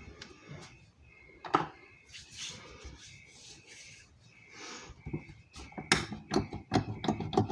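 Latex gloves rubbing and squeaking as hands work in lotion, with sticky clicks throughout. There is one sharp snap about a second and a half in, soft rubbing in the middle, and a quick run of clicks near the end.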